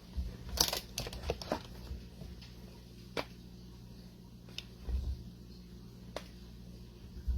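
Kitchen handling noise while ingredients go into a slow cooker: a quick run of light clicks and knocks in the first couple of seconds, then a few single ticks and soft thumps of containers and utensils being moved.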